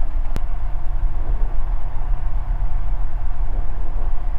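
Ikarus C42B microlight's engine running steadily on the ground, a constant low rumble, with a single sharp click about half a second in.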